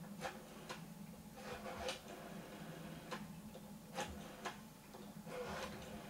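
Rotary dial of a Northern Telecom 500 telephone being dialed: quiet clicks at uneven spacing as the dial is pulled round and spins back, one digit after another.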